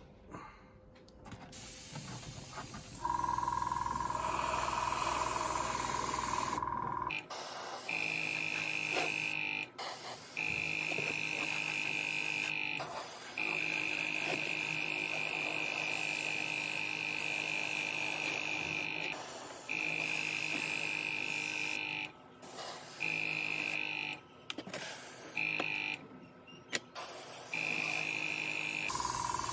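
Airbrush compressor's small electric motor running with a steady whine, air hissing through the airbrush as paint is sprayed. The whine shifts to a higher pitch about seven seconds in, then cuts out and restarts again and again in short passes.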